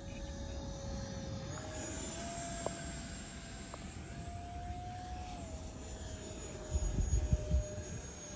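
Electric ducted-fan whine from a 50 mm EDF model T-33 Shooting Star jet flying overhead. The pitch rises about a second and a half in, holds, and falls back about five and a half seconds in. Wind rumbles on the microphone, heaviest near the end.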